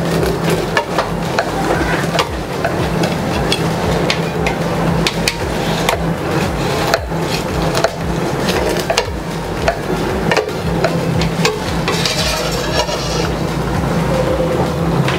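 Knife cutting through a baked quiche's crisp shortcrust pastry base, making a dense run of crackling and crunching as the crust breaks.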